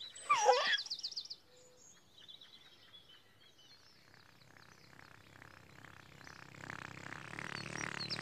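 A baby's short giggle with bending pitch just after the start, then faint birdsong chirps. Over the second half a low, buzzing, pulsing drone swells up.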